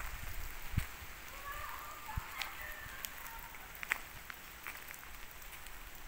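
Outdoor park ambience: a steady hiss with scattered light ticks and a couple of low thumps in the first few seconds, and faint rising and falling calls around two seconds in.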